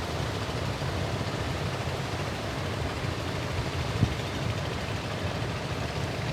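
Fishing boat's engine running steadily under a wash of noise, with one sharp click about four seconds in.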